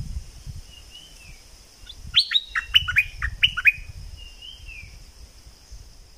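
Stripe-throated bulbul song: a quick run of about seven sharp, clear notes, each sliding downward, with softer single slurred whistles before and after it, over a low rumble.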